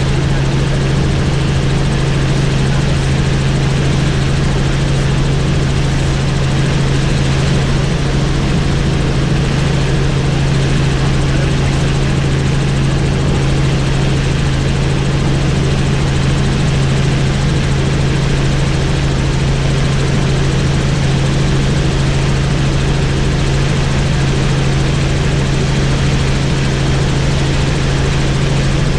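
Helicopter in flight, a steady unbroken rotor and engine noise with a strong constant low hum.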